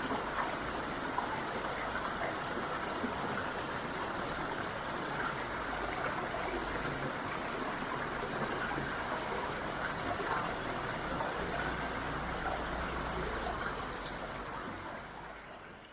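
Steady rain falling, an even patter with scattered drop ticks, fading out over the last couple of seconds.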